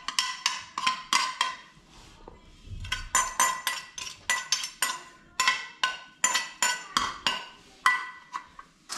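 A metal spoon clinking and scraping against a metal dish while mixing food, a string of short ringing clinks about two a second.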